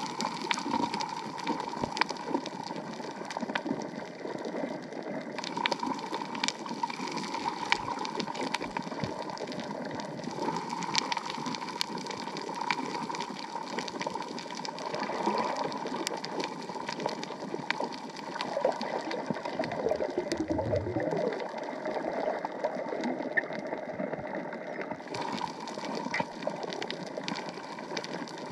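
Underwater sound recorded on a camera: a steady watery hiss sprinkled with many sharp crackling clicks, with a brief louder gurgling rush about two-thirds of the way through.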